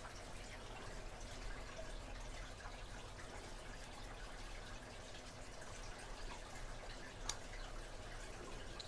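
Faint, small metal clicks of tweezers handling a tiny lock spring and pin while seating them into a padlock's pin chamber, with one sharper click about seven seconds in.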